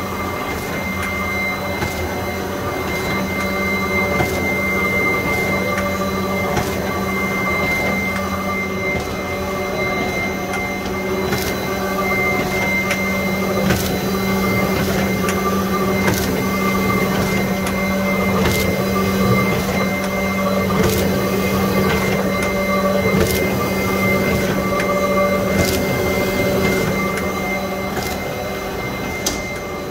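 Multi-colour rotary label printing press running steadily, with a constant hum, a high steady whine, and sharp clicks every second or two.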